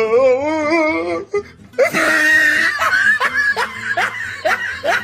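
Laughter with an edited-in comic musical sound: a wavering pitched tone at first, then a loud burst about two seconds in and quick rising whoops about three times a second.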